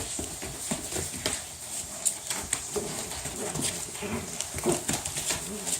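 Six-week-old puppies playing together: a run of small clicks and scuffles, with some short puppy noises between about three and five seconds in.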